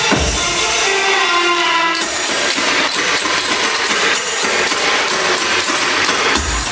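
Dance music track: a melodic passage, then about two seconds in a dense, hissing, rattling stretch with little melody or bass, until the low beat comes back near the end.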